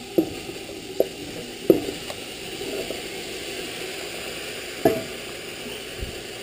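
Raw beef chunks sizzling in hot oil in an aluminium pressure cooker pot as they are tipped in, with four short sharp knocks in the first five seconds as pieces drop in.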